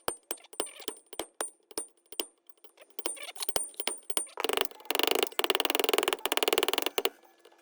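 Sharp metallic clinks and taps of steel tools and parts, about three or four a second. Roughly halfway through comes a louder, dense rattling clatter of metal lasting a couple of seconds, then the taps resume.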